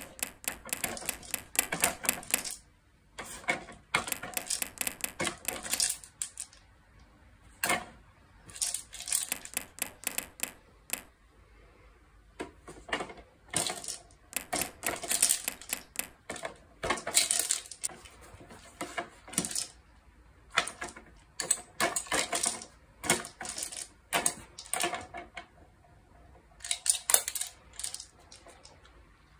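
Dog treats rattling and clattering inside the hard plastic cylinders of a dog puzzle toy as a dog noses and tips them, in repeated bursts of clicks with short quiet gaps, treats dropping onto the plastic base, and the dog crunching treats.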